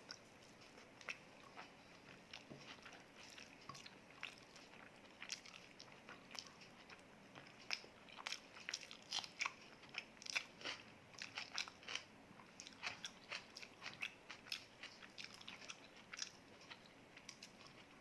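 A person chewing food close to the microphone: a run of faint, quick, moist clicks and small crunches, sparse at first and busier in the middle.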